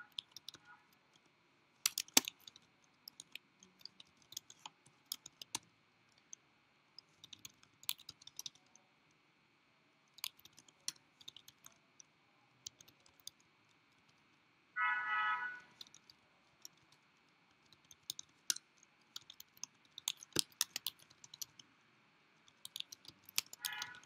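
Computer keyboard typing: scattered keystroke clicks in short irregular runs, faint. A brief pitched sound lasting about a second comes about fifteen seconds in.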